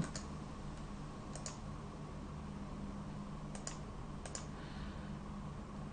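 A few scattered clicks of a computer mouse, several in quick pairs, over a faint steady hum.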